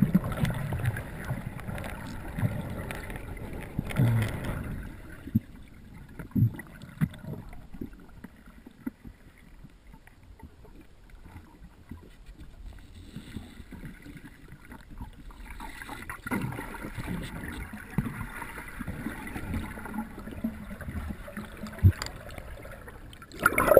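Muffled underwater sound from a wrist-mounted GoPro Hero HD in its waterproof housing: a dull rushing of water with irregular knocks and bumps as the swimmer's arm moves, and a short louder burst near the end.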